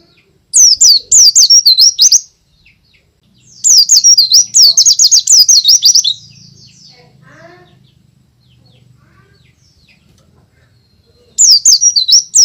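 White-eye (pleci) singing loudly in three bursts of rapid, high, up-and-down notes: one about half a second in, a longer one around four seconds in, and another starting near the end. Faint softer chirps fall between the bursts.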